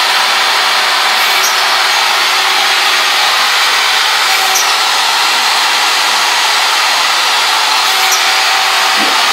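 Another workshop machine running steadily, a loud even whirring hiss that does not change, described as a little loud.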